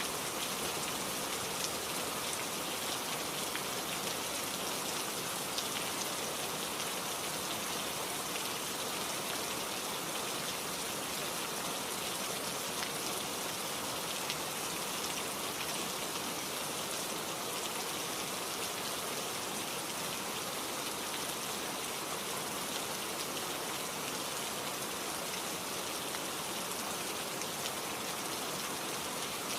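Steady rain falling: a dense, even hiss with scattered small drop taps.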